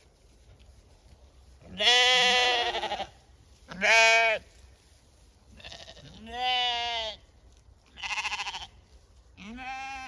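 Zwartbles sheep bleating: five separate calls over about eight seconds, each rising and falling slightly in pitch, the first two the loudest.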